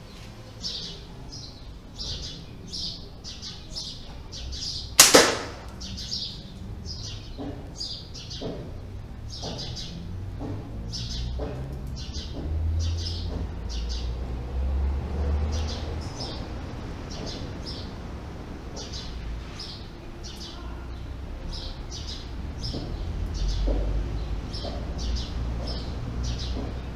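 A slingshot rifle fired once about five seconds in, a single sharp crack, as it shoots at a beer can. Birds chirp in short high calls throughout, and there is quieter handling noise while it is reloaded.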